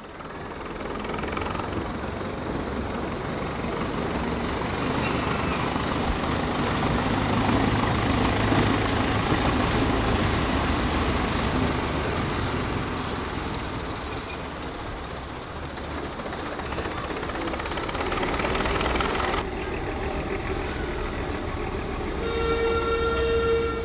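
Small shunting locomotive running along the track close by, a steady rumble and rail noise that builds and holds. Near the end a short, steady toot sounds once.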